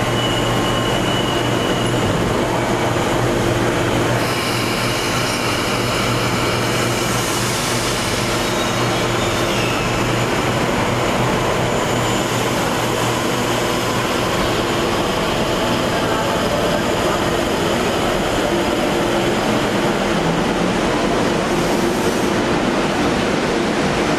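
Train running on the rails: a steady running noise with thin high wheel squeals that come and go.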